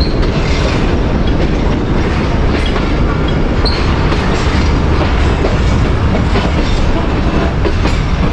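Passenger train coach rolling along the track: a steady low rumble with wheel clatter over rail joints and a couple of short, high wheel squeals, one at the start and one a little before the middle.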